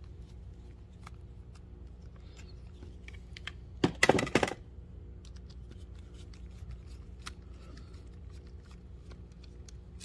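Faint scattered clicks and scrapes of a small screwdriver turning screws out of a plastic scooter key-switch housing, with a brief louder burst of handling noise about four seconds in, over a steady low hum.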